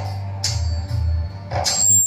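Music played back loud through a PA sound system under test, with a heavy, pulsing bass line and two sharp percussion hits.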